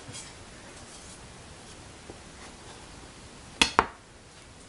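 Two quick, sharp clinks of a kitchen utensil about a fifth of a second apart, near the end, over faint soft sounds of fingers pressing a patch into the edge of rolled-out pie dough.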